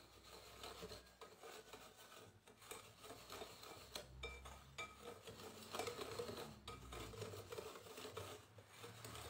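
Wire whisk stirring dry flour and sugar in a glass bowl: faint, irregular scraping with light clinks of the wires against the glass.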